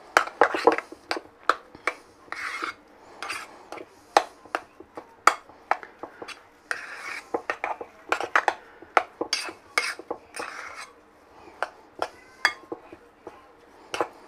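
Metal utensil clinking and scraping against a mixing bowl while a thick mashed-potato, cheese and sour-cream filling is stirred: irregular sharp ticks of metal on the bowl, several a second, with soft scraping of the stiff mixture in between.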